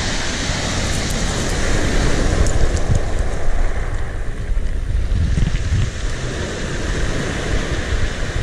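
Wind buffeting the microphone in uneven gusts, over the steady wash of sea waves.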